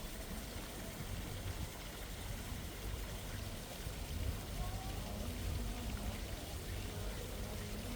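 Stream water running, a steady rushing with a low rumble underneath.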